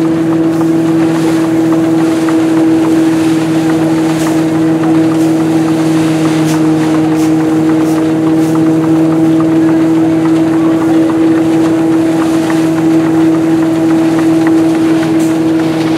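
Vintage threshing mill running at a steady speed as sheaves are fed in, giving a constant hum, with light irregular ticks over it.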